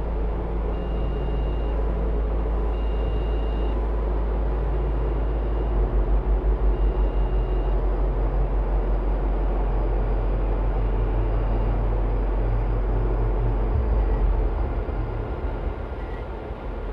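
Dark ambient electronic music: a deep, heavy bass drone under a dense haze of noise, which starts to throb at about four pulses a second some six seconds in. Short high tones sound on and off in the first half.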